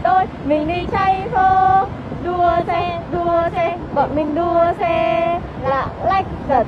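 High-pitched singing voice in short held and sliding notes, a bouncy sung tune.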